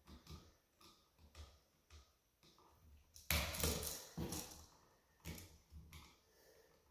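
Faint clicks, small knocks and a rustle from hands working an outlet receptacle and its wires, with a louder scraping rustle lasting about a second, starting about three seconds in.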